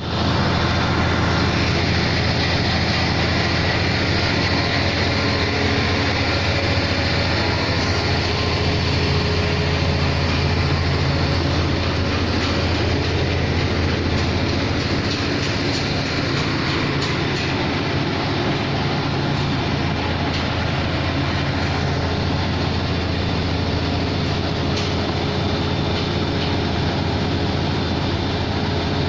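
Large 655 CFM portable air compressor's diesel engine running steadily, with a loud low drone.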